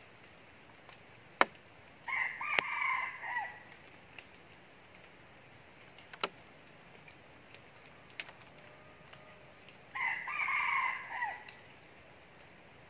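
Red junglefowl rooster crowing twice, each crow about a second and a half long, the second about eight seconds after the first. A few sharp clicks fall between the crows, the loudest just before the first crow.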